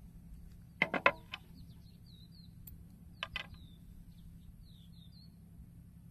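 Small birds chirping: a string of short, high, quick notes. Two quick clusters of sharp clicks, the loudest sounds, come about a second in and again a little after three seconds.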